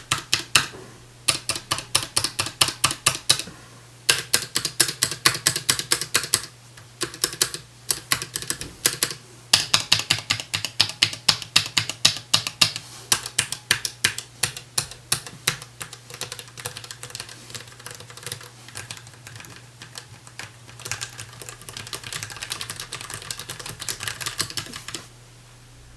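Keystrokes on a DAREU EK820 low-profile mechanical keyboard with Kailh LP red linear switches, pressed in quick runs of several clacks a second with short pauses, including its stabilized larger keys. A low steady hum sits underneath, and the keystrokes stop about a second before the end.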